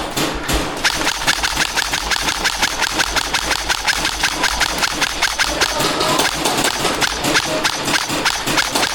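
Airsoft guns firing in quick succession: a dense, continuous rattle of sharp shots.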